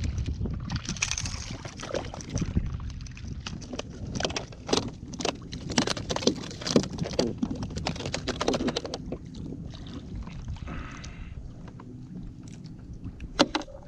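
A rapid series of sharp clicks and knocks, thickest in the middle, over a low rumble of wind and water, with one louder knock near the end.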